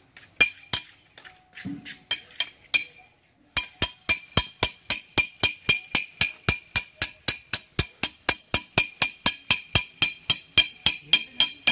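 Metallic clinking strikes with a bright ring. A few scattered strikes come first, then from about three and a half seconds in a steady, even run of about four a second.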